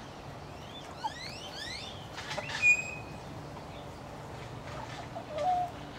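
Hens vocalizing: a quick run of rising chirping trills about a second in, one short, sharp, loud call about two and a half seconds in, and a brief low cluck near the end, over a steady low hum.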